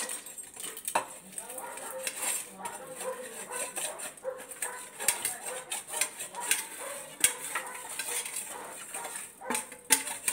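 A steel spoon clinking and scraping against a steel plate and the pan rim as jaggery is scraped off into a pan of water to melt: irregular sharp metal-on-metal clinks, some louder ones about a second in, near the middle and shortly before the end.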